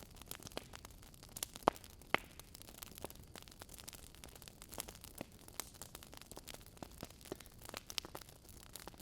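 Wood fire crackling: irregular sharp pops and snaps of varying strength over a soft steady hiss.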